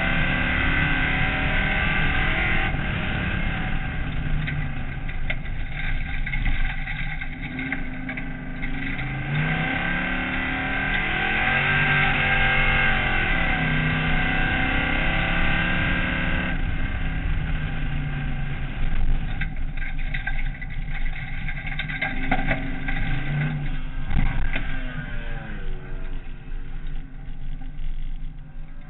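Race car engine heard from inside the cabin, revving up and down as the car is driven hard around a dirt circuit, its pitch climbing and falling through the gears and corners. It eases off and the pitch drops in the last few seconds.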